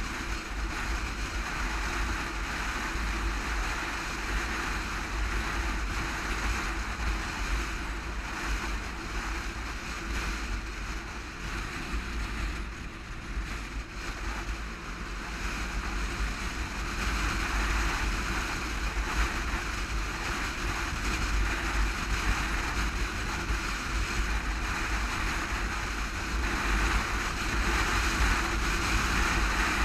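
Wind rushing and buffeting over the microphone of a camera on a sport motorcycle at freeway speed, with the bike's engine and road noise beneath it. The rush grows louder in the second half.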